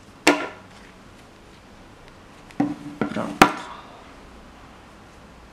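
A few sharp knocks of hard objects set down on a wooden tabletop, a smartphone among them: one knock just after the start, then three close together about three seconds in, the last the loudest.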